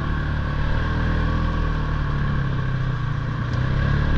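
Polaris Sportsman ATV engine running at a low, steady speed while riding.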